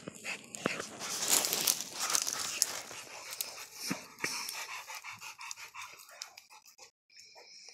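Dogs digging and nosing in loose dirt: paws scraping and scattering earth in a dense scratchy rush with many small clicks, loudest about a second to three seconds in, with panting and sniffing.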